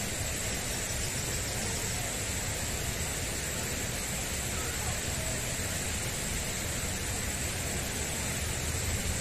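Steady background hum of distant road traffic, with a faint constant high-pitched tone over it.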